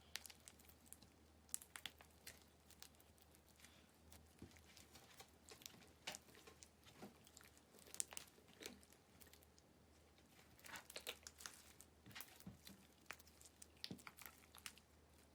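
Clear slime being squeezed and stretched by hand, giving faint, irregular sticky clicks and pops.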